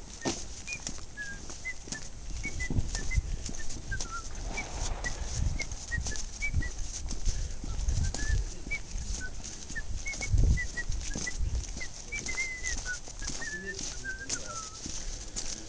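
Small birds chirping over and over in short, high chirps, with the thud of footsteps on pavement underneath.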